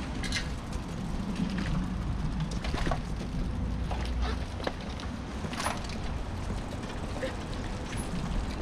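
Bicycle rolling over brick paving, heard from a camera mounted on its handlebar: a low rumble with scattered rattles and clicks.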